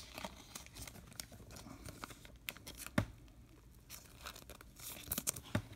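Faint handling noises of a baseball card and its stack being turned over in the hands: soft rustling with a few light clicks, one about three seconds in and a short cluster near the end.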